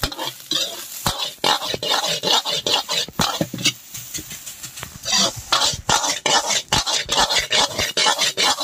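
A metal ladle scraping and clanking against a steel wok in quick repeated strokes as fried rice is stir-fried, with the rice sizzling underneath.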